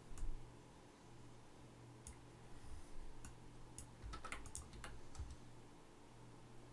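Faint computer mouse and keyboard clicks: a few scattered clicks, then a quick run of several around four to five seconds in, over a faint steady low hum.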